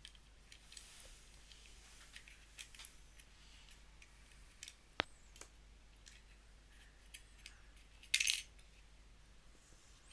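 Small plastic and metal parts of a mini pouch sealer being handled while its power switch is removed: light clicks and taps, a sharp click with a short metallic ring about 5 seconds in, and a louder scraping clatter about 8 seconds in.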